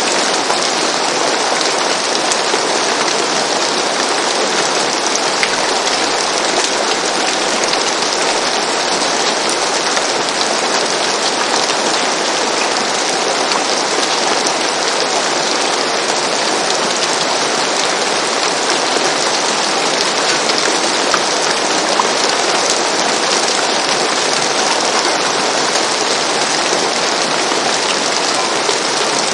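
Steady rain falling on a roof, an even hiss of many drops with small scattered ticks and no change in strength.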